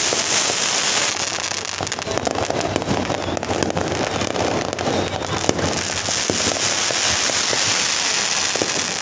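Strings of firecrackers going off in a dense, continuous crackle of rapid bangs.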